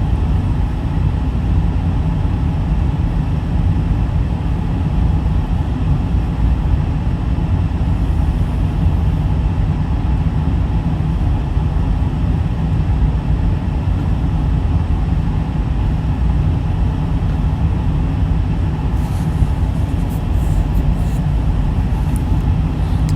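Steady low rumbling background noise at an even level, with a few faint sharp clicks near the end.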